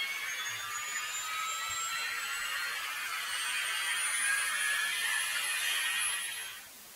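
Electronic riser in the track: a high sustained synth tone with hiss that slowly rises in pitch, with no beat under it. It fades out shortly before the end.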